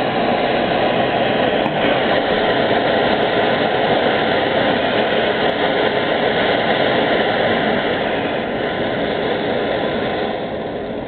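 Gas burner flame burning with a steady rushing noise, getting quieter near the end as its valve is turned down to lower the flame.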